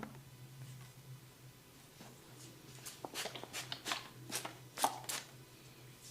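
A barber's hands tapping and slapping in a quick run of about a dozen percussive massage strokes, starting a little before the middle and stopping about a second before the end, over a steady low hum.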